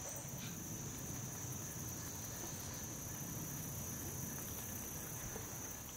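Steady, high-pitched chorus of crickets, one unbroken shrill tone.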